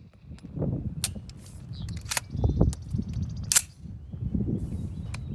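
Suppressed 9mm blowback AR pistol firing four shots, spaced a second or more apart. A steel target rings near the end.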